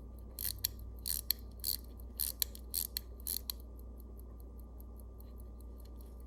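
Light, sharp metallic clicks, often in pairs, about three a second for the first three and a half seconds, from the pocket watch case being handled while its clear crystal is fitted. After that only a faint steady hum remains.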